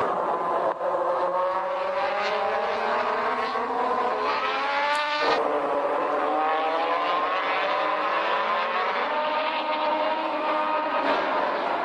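Moto2 racing motorcycles with Triumph 765 cc three-cylinder engines running at high revs. The pitch climbs again and again as they accelerate through the gears. About five seconds in, the sound breaks off abruptly and then picks up at a lower pitch.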